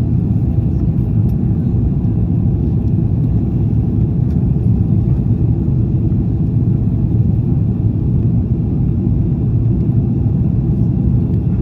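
Steady cabin noise of an Airbus A330-300 in flight: the low rumble of its Rolls-Royce Trent 700 engines and the rush of air past the fuselage, heard from inside the cabin.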